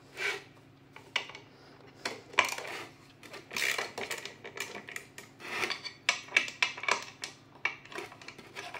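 Irregular metallic clicks and short scrapes as a T20 Torx screwdriver bit turns star screws loose in a vacuum cleaner's motor and pump housing.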